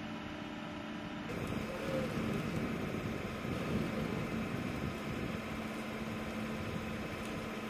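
Vehicle engine idling under a steady machinery hum inside an aircraft cargo hold. After a cut a little over a second in, the running gets louder and fuller.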